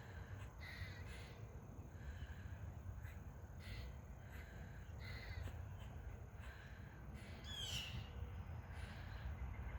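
Faint, short animal calls from the trees, repeating every second or two, with one falling whistled note near the end, over a low rumble.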